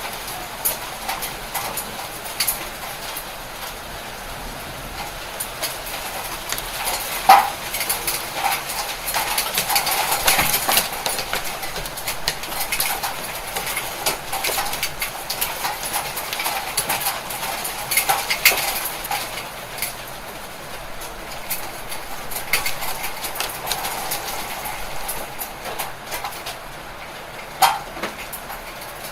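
Hailstones falling hard, a dense patter of sharp clicks and hits on hard surfaces, with rain, and a few louder single impacts standing out now and then.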